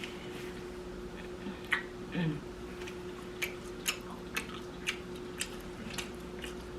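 Close-up mouth sounds of someone chewing food: wet smacks and clicks about twice a second, over a steady low room hum.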